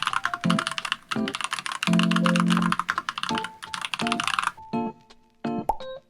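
Fast typing on a NuPhy Halo96 mechanical keyboard with Baby Kangaroo switches: a dense run of clacking keystrokes that stops about three-quarters of the way through. Background piano music plays throughout.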